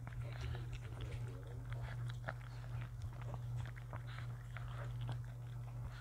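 Shih Tzu eating dry kibble from its bowl: irregular crunching and small clicks of teeth and tongue against the bowl as it licks it clean. A steady low hum runs underneath.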